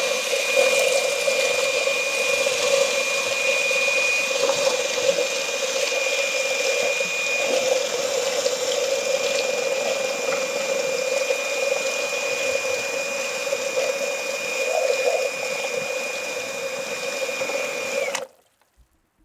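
Electric drill with a paddle mixer running steadily in a tub of wet cement mix, a constant motor whine over the slop and churn of the mix. It cuts off suddenly near the end.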